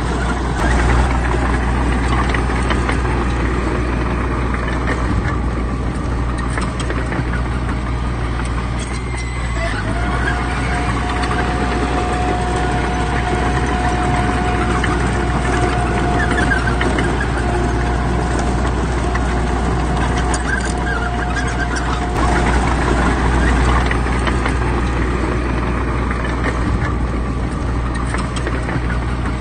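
Diesel engines of heavy earthmoving machines (bulldozers and dump trucks) running steadily, with a high whine that fades in and out.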